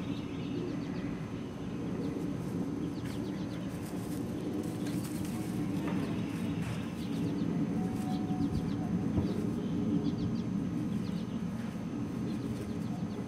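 Birds chirping in short, high calls over a steady low rumble.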